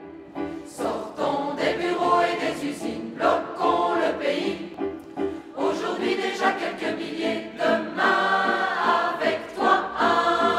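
A choir singing a song, in phrases with short breaks between them.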